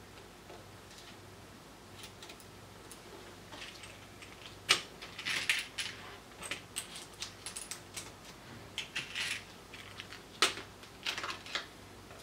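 Small hard clicks and rattles of electronic parts and a clear plastic parts box being handled, with sharper clacks about five and ten seconds in.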